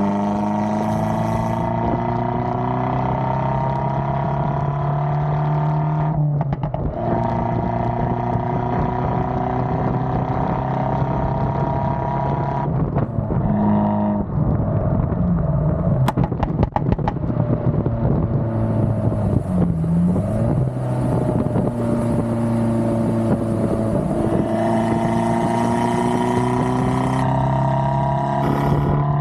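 Abarth 595 Competizione's turbocharged four-cylinder through an Akrapovič exhaust, accelerating hard through the gears: the engine note climbs steadily, with short breaks at the shifts about six and twelve seconds in and again near the end. In the middle, off the throttle, the exhaust crackles and pops before the engine pulls again.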